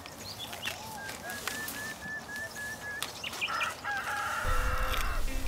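Birds calling outdoors: a run of about eight short, evenly spaced high notes, among lower arched calls and scattered chirps. A low rumble comes in near the end.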